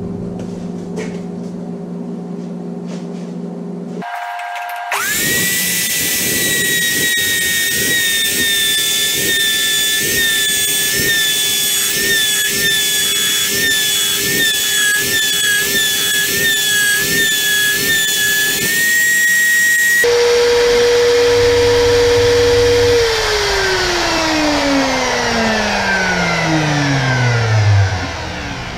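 Electric router starts with a rising whine and cuts a slot in a cast-iron brake disc, its pitch dipping and wavering as the bit loads in the cut. About twenty seconds in the high whine stops abruptly and the motor winds down, its pitch falling steadily near the end.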